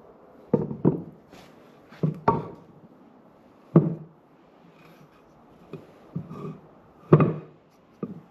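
Blocks of wood being handled and set down on a bench: a string of about eight separate wooden knocks and clunks at uneven spacing, the loudest about four and seven seconds in.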